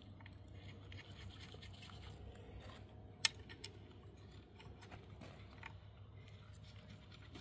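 Faint scraping and small metal clicks as bolts are set by hand into the Humvee water pump and engine front plate, with one sharper click about three seconds in.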